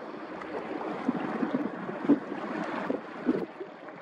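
Wind gusting on the microphone over a steady rush of sea and wake water, with irregular swells in loudness and no distinct engine tone.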